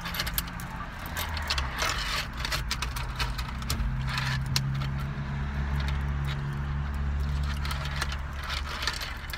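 Car engine idling, its low hum heard from inside the cabin, growing stronger for a few seconds from about four seconds in, with scattered small clicks and rustles.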